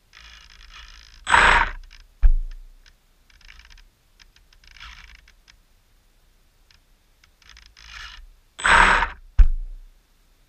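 Homemade RC boat's motor giving two short bursts of throttle, each followed by a sharp knock, with fainter, patchy sounds between.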